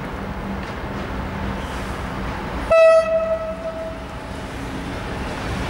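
TEM2 diesel shunting locomotive running under load with a steady rumble as it approaches. About three seconds in it gives one short horn blast on a single note, which starts sharply and fades within about a second.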